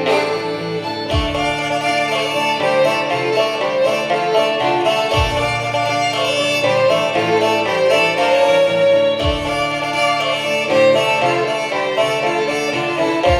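Two fiddles and a banjo playing a fiddle tune together, with a low thump about every four seconds.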